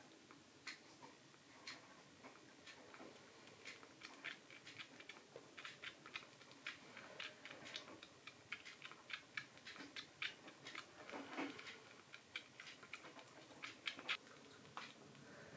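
Kitten suckling from a nursing bottle's teat: faint, irregular wet clicks and smacks from its mouth, two or three a second.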